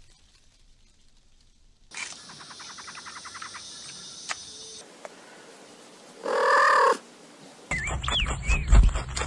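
A series of short animal sounds: a fast run of small clicks, then one loud pitched call of under a second about six seconds in, then chirping glides mixed with clicks near the end.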